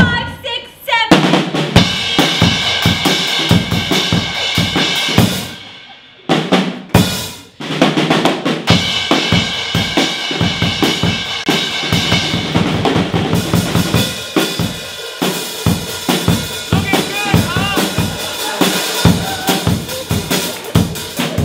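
Drumming on bass drum and snare in a quick steady beat, breaking off briefly about six seconds in and then starting again.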